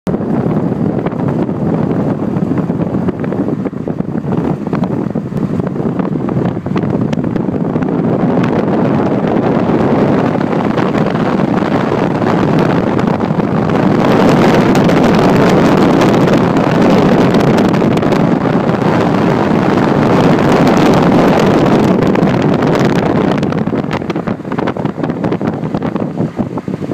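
Wind rushing and buffeting the microphone of a camera in a moving vehicle, over the vehicle's engine and road noise. Loudest in the middle, easing and getting choppier near the end.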